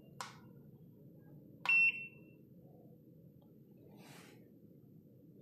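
SkyRC IMAX B6 V2 charger's buzzer giving short high beeps as its Enter button is pressed to save a charge program to memory: one beep about two seconds in and another at the very end.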